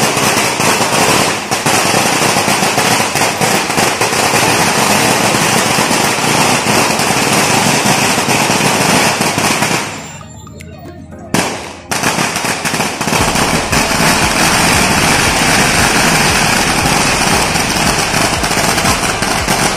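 A long string of firecrackers going off in a rapid, continuous crackle of sharp pops. It breaks off briefly about ten seconds in, then starts again.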